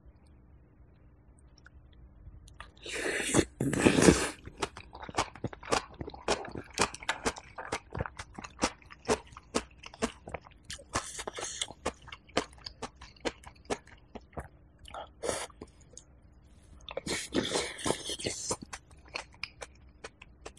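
Close-miked wet, crunchy chewing of a mouthful of napa cabbage kimchi and rice porridge, a long run of sharp crunches and clicks. Two louder, longer rushing sounds come about three seconds in and again near the end.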